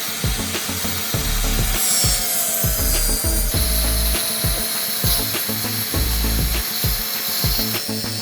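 A hand or power tool working wood, with a rasping, sawing-like sound and a steady high whine, under background music with a regular beat.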